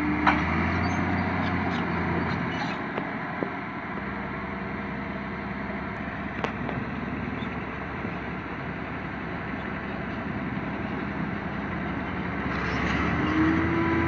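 Komatsu D70LE crawler bulldozer's diesel engine running steadily as it pushes soil, with a couple of sharp clicks. Near the end a Mitsubishi Fuso dump truck's diesel engine grows louder, rising in pitch as the truck drives up.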